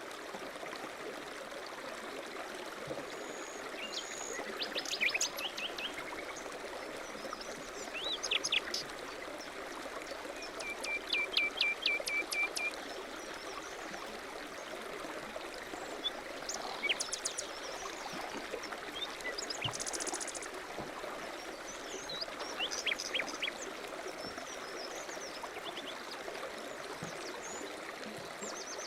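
Steady rush of running water in a stream, with birds chirping and trilling at intervals above it, including a rapid trill of repeated notes about eleven seconds in.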